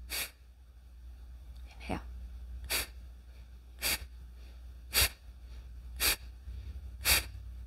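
A woman's sharp, forceful exhalations through the nose, Kapalabhati breathing, about once a second. Each exhale is pumped by drawing the belly in and up, with a passive inhalation between.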